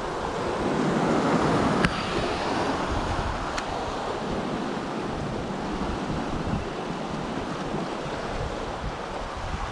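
Ocean surf washing and breaking over rocks, with wind buffeting the microphone; a wave surges up about a second in. Two sharp clicks sound, one just under two seconds in and another about two seconds later.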